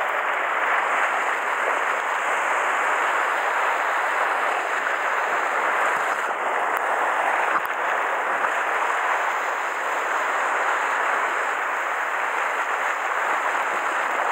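Sea surf washing and churning against a rocky shoreline: a steady rush of moving water.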